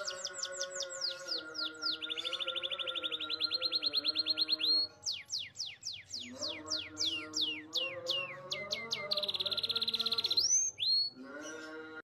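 Domestic canary singing a rolling song: fast trills of repeated notes, a long buzzy trill held on one pitch, then a quick run of downward-swept whistled notes and another fast trill near the end. Steady background music plays beneath it.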